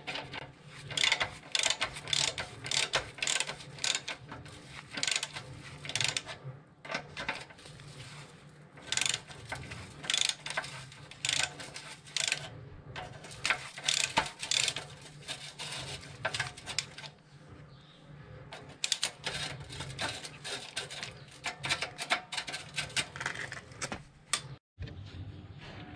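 Hand ratchet wrench clicking in repeated quick runs as bolts are turned out.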